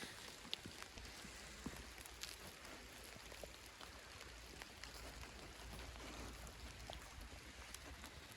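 Faint forest ambience: a soft steady hiss with scattered light ticks and taps, over a low rumble.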